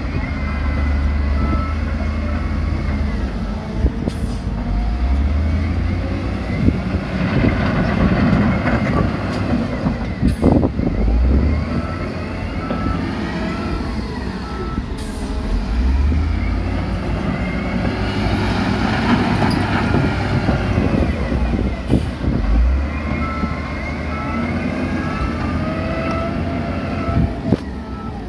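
Heavy diesel construction machinery at work: engines running and revving up and down, with a few sharp knocks and, at times, a run of short, evenly spaced beeps.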